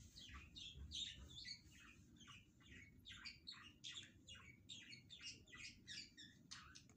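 Faint, rapid bird chirping: many short falling chirps a second, continuing without a break.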